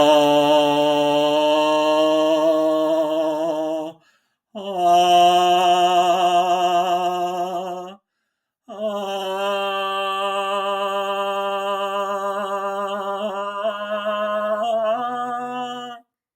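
A man's voice singing three long, held chant-like vowel tones with short breaths between them, the second and third a little higher than the first. The last tone wavers slightly near its end. It is a vocal toning exercise for loosening a strained throat.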